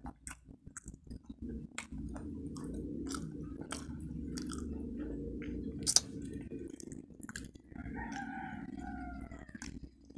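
Close-miked chewing of a waffle burger: a steady, moist mouth sound broken by frequent sharp clicks and smacks, the loudest about six seconds in.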